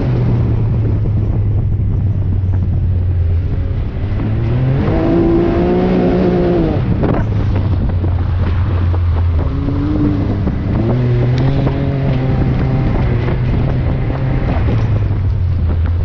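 Off-road vehicle engine running under way, its pitch rising and falling as the throttle is worked, with a strong climb about five seconds in and another around ten seconds.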